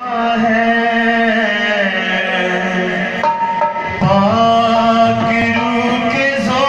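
A Hindi-Urdu Christian devotional song (masih geet) performed live: a man sings long, held notes that slide between pitches over a harmonium, with a dholak hand drum.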